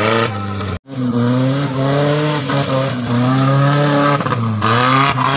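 The engine of a 1000 cc class tubular off-road buggy revving hard as it is driven over a dirt track, its pitch rising and falling several times as the throttle goes on and off. The sound breaks off for an instant about a second in.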